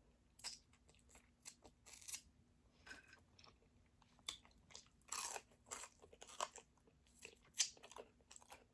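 Close-up crunching and chewing of crispy fried chicken wings: irregular crisp crunches, with the loudest bites a little after five seconds and about seven and a half seconds in.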